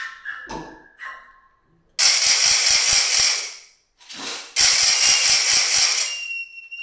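Hand-made foley effect: two loud bursts of rapid ratchet-like rattling, each about a second long, with a short gap between them. Near the end a steady high whistling tone starts.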